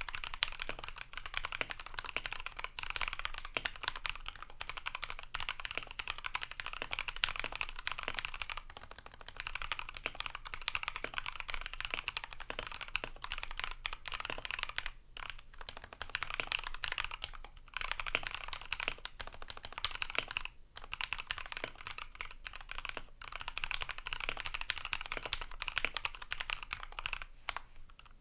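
Fast, continuous typing on a Corsair K70 PRO MINI Wireless mechanical keyboard with Cherry MX Silver linear switches, fully lubed with Krytox 205g0 and filmed, on an aluminium plate with added case foam. The keystrokes run as a dense stream of clicks with a few short breaks in the middle.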